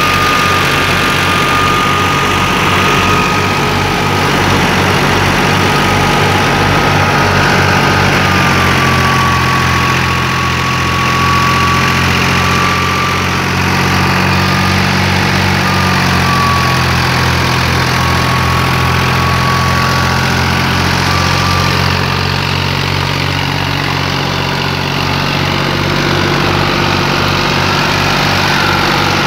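New Holland Fiat 480 tractor's diesel engine running steadily, driving a wheat thresher through its PTO shaft, with a thin steady whine above the engine's beat.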